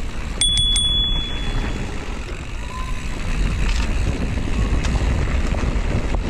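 Bicycle bell rung three times in quick succession about half a second in, its clear high ring fading out over the next second. Under it, a steady rumble of wind and tyres while riding.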